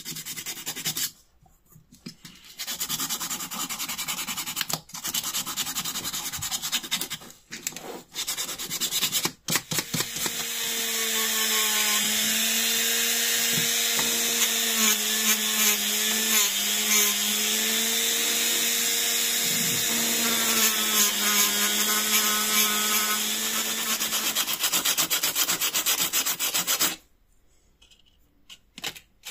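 Flexible-shaft rotary tool spinning a wire brush wheel against a small metal doorbell part to clean and polish it: a steady motor hum under a loud brushing hiss, its pitch dipping and wavering as the wheel is pressed on. Before it starts there are several short bouts of scratchy rubbing, and it stops near the end.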